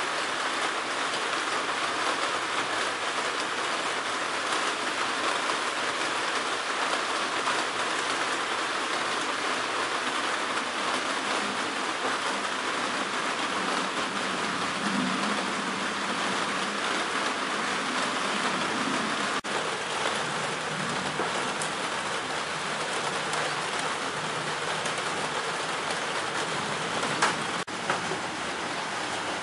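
Light, steady rain falling, an even hiss of drizzle with drips. A brief click about two-thirds of the way through and another near the end.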